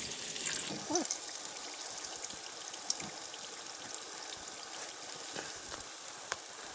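Food frying in hot fat in a pan: a steady sizzle with small scattered crackles.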